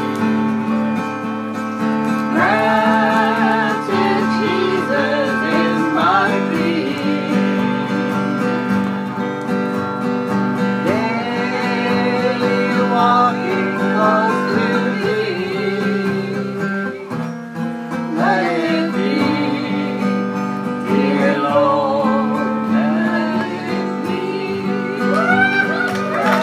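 Live singing with acoustic guitar accompaniment: the guitar holds steady chords while the voice comes in and out in sung phrases.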